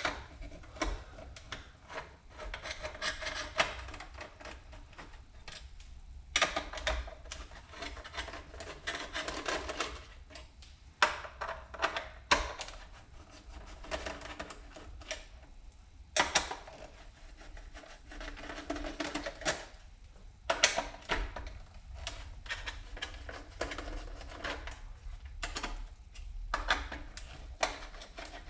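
Hands taking apart a 1972 Chevrolet C10 gauge cluster: plastic and metal parts clicking, tapping and rubbing against each other in irregular bunches with short pauses between.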